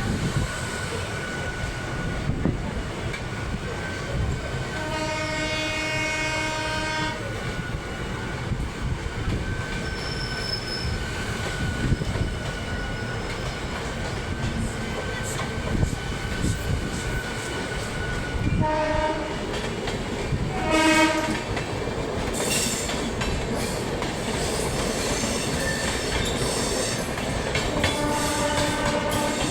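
Train running on the rails with steady rolling noise, wheels clicking over the joints, and a thin steady whine. An Indian Railways locomotive horn sounds four times: a long blast about five seconds in, two short blasts about two-thirds of the way through, and another that starts near the end.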